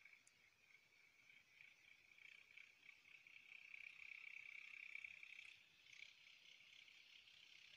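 Faint, steady, high-pitched buzzing chorus of calling animals, growing louder toward the middle and easing off about five and a half seconds in.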